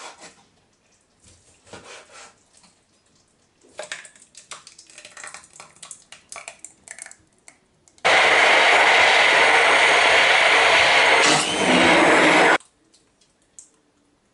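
Handheld immersion blender puréeing tomato-cream sauce in a plastic measuring jug. It runs loud and steady for about four and a half seconds from about halfway in, dips briefly, then stops abruptly. Before it come light knocks and scrapes of a knife cutting chicken on a plastic cutting board.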